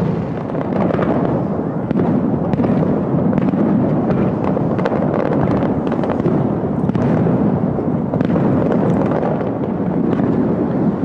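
Fireworks display, aerial shells bursting one after another: many sharp cracks and bangs over a dense, continuous low noise.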